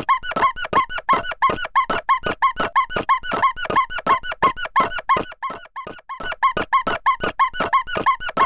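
A cartoon squeak sound effect repeated rapidly, about four to five squeaks a second, each squeak bending in pitch, with a brief pause about five and a half seconds in.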